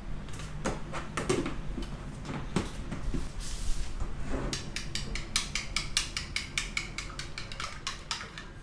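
A utensil beating an egg, tofu and shrimp-paste mixture in a bowl, clinking against the bowl. The clinks are scattered at first, then about halfway through they become a quick, steady run of about six taps a second.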